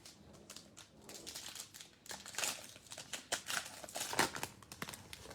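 Plastic wrapper of a football trading-card pack crinkling and crackling in the hands as the pack is opened, in a dense run of irregular crackles.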